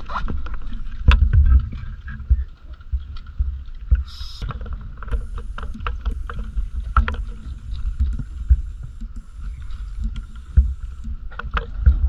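Underwater sound picked up through a diving camera's housing: a constant low rumble and swell of moving water, with scattered small clicks and knocks and a faint steady hum. A brief hiss comes about four seconds in.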